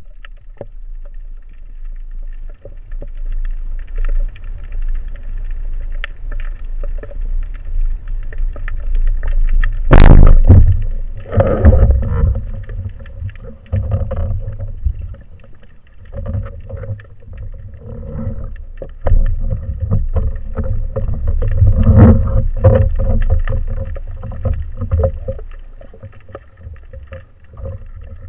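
Muffled underwater noise heard through a camera housing on a speargun: a steady low rumble of water moving with irregular knocks and sloshes. A loud, sharp knock comes about ten seconds in, and another loud burst comes a little past twenty seconds.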